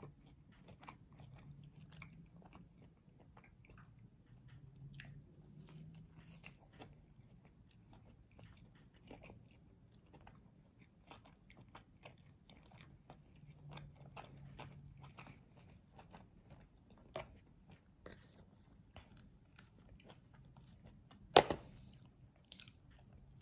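A person chewing and biting food close to the microphone, faint, with many small clicks and one sharp, louder click about 21 seconds in.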